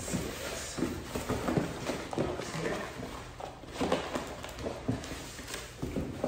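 Unpacking a cardboard box: irregular rustling, scraping and knocking of cardboard and foam packing inserts as they are pulled out and handled.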